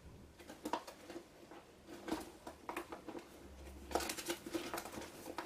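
Loose paper scraps rustling and clicking as they are sorted by hand in a box of leftover paper, with a busier burst of shuffling about four seconds in.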